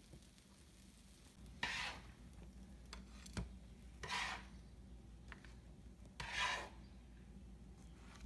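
Spatula scraping under cooked pancakes on an electric griddle to lift them off, three short scrapes about two seconds apart, with a few light clicks between.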